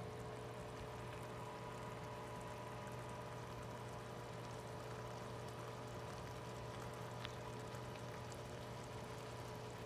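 A pan of pork and beans simmering on the stove: faint, steady bubbling and popping of the sauce over a constant low hum. A single small click about seven seconds in.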